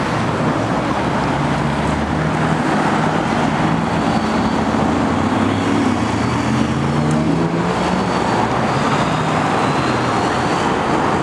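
Steady city road traffic: cars and buses running past, with low engine notes that rise and fall as vehicles go by.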